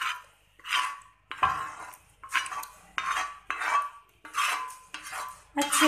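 A spoon scraping chicken masala out of a wok into a pot of rice: about eight short metallic scrapes and clinks in quick succession.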